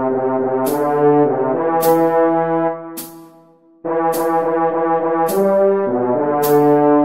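French horn playing a melody in two phrases, with a short pause about three seconds in. A sharp click about once a second keeps time throughout.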